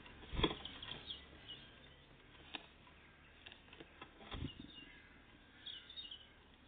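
Great tits and blue tits at a peanut feeder: a few sharp knocks and light ticks as they land, hop and peck, with wing flutters and a few short, high chirps.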